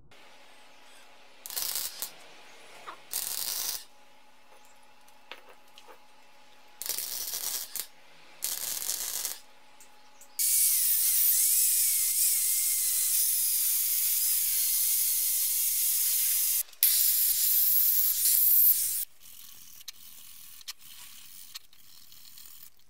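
Several short hissing bursts over the first ten seconds, then a powered belt file running against the engineer's vice body with a loud steady hiss and a wavering whine for about six seconds. It stops briefly, then runs two seconds more before it goes quieter.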